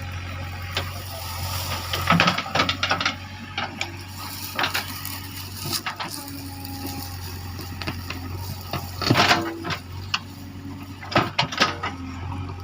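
JCB 3DX backhoe loader's diesel engine running steadily, with irregular sharp cracks and knocks as it breaks up babul trees and brush.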